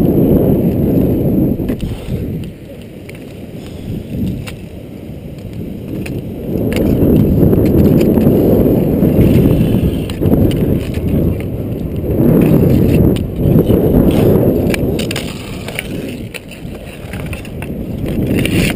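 Inline skate wheels rolling on rough asphalt, a coarse rumbling that swells and fades as the skater strides and glides, with a few sharp clacks of hockey sticks and puck.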